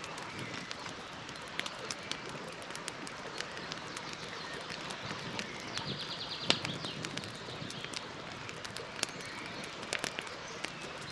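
Campfire crackling, with scattered sharp pops from the burning wood, the loudest about six and a half seconds in. Birds chirp faintly behind it, with a short rapid trill near the middle.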